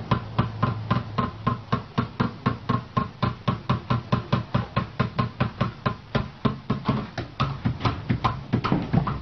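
Rapid, even knocking, about five knocks a second, each with a faint metallic ring.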